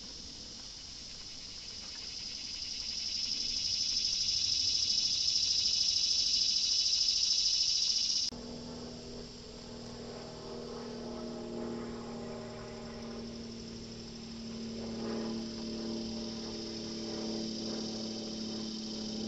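A high insect buzz that swells louder over the first few seconds and cuts off abruptly about eight seconds in. After that a fainter insect buzz continues under a low, steady hum of several tones.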